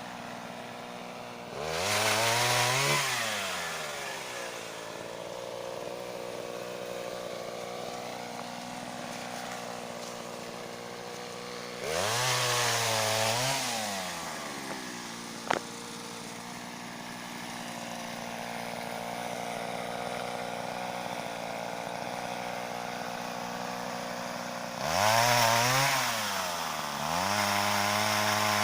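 Mitsubishi TL26 two-stroke engine on a pole saw, idling steadily and revved up in short bursts four times, each rising in pitch and dropping back to idle. There is a single sharp click near the middle.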